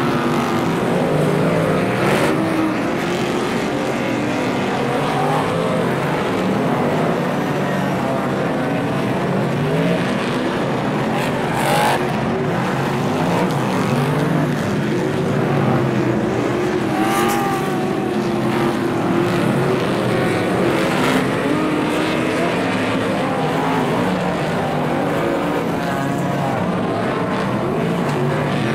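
Several dirt-track race car engines running hard as the pack laps the speedway oval. The engine pitch rises and falls as cars pass and come off the throttle for the turns, with a couple of brief louder surges about twelve and seventeen seconds in.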